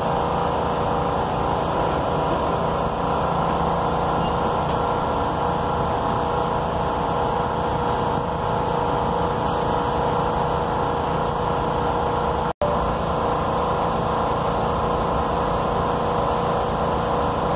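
Steady engine and cabin hum heard from inside a vehicle, with a few held tones over a low rumble; it cuts out for an instant about twelve seconds in.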